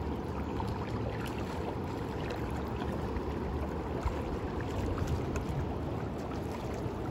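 Steady rushing noise of river current around a wading angler, mixed with wind on the microphone.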